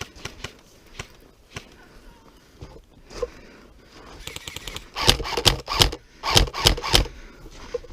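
Airsoft guns firing: scattered single shots at first, then from about four seconds in, rapid full-auto fire in several short, loud bursts close by.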